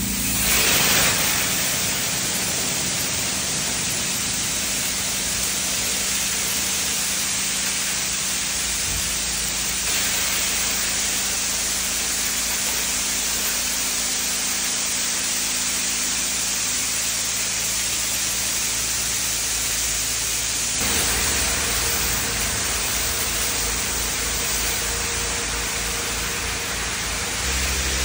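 Automatic car wash water jets spraying over a Can-Am Spyder trike: a loud, steady hiss of spray. About 21 s in, a low, rhythmic machine hum joins in under the spray.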